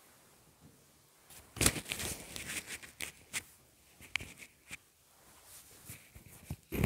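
Handling noise: rustling and crinkling with several sharp clicks, loudest about one and a half seconds in and again near the end.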